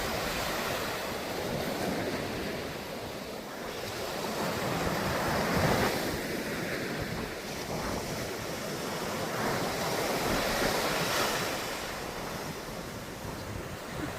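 Sea waves breaking and washing on the shore, swelling and ebbing every few seconds, with wind buffeting the microphone.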